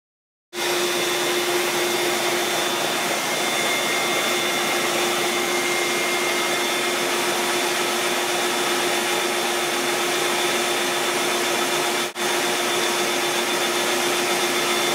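Vacuum motor running steadily with a constant whine, blowing or drawing air through a hose to drive a homemade wooden reciprocating air engine. It starts about half a second in and drops out for an instant once near the end.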